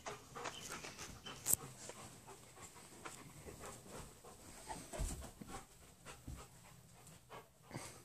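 A dog panting faintly while playing with a rope toy, with a sharp click about a second and a half in and a low thump about five seconds in.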